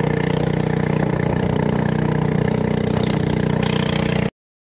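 Small motorboat's engine running steadily at speed, with the rush of water along the hull; it stops abruptly near the end.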